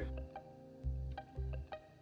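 Background music: plucked strings over a steady, pulsing bass beat.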